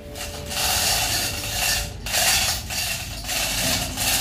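Manual chain hoist being pulled by hand to shift a heavy marine engine: the chain rattles through the block and the ratchet clicks, in a run of pulls with short breaks between them.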